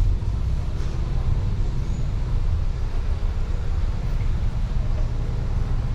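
Street ambience with a steady low rumble of road traffic.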